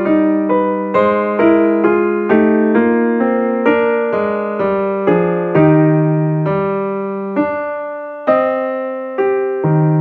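Soft background piano music: notes and chords struck about twice a second, each fading away, becoming sparser near the end.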